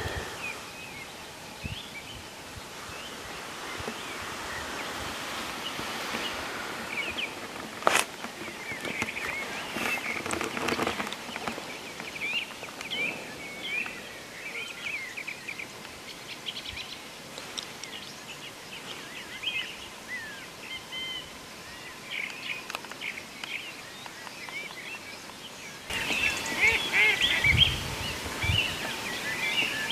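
Many small birds chirping and singing in a dawn chorus, with one sharp click about eight seconds in. The birdsong gets louder and busier near the end.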